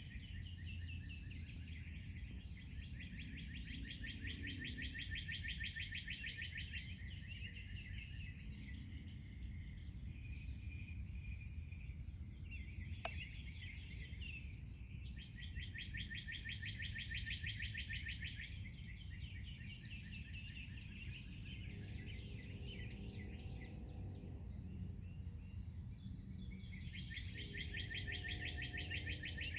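Songbirds singing in rapid chirping trills that come in several bouts, over a steady low background rumble.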